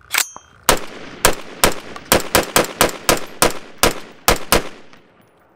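A 10.5-inch 5.56 AR-15 pistol with a muzzle brake firing a rapid semi-automatic string of about thirteen shots, two to three a second at an uneven pace, stopping near the end.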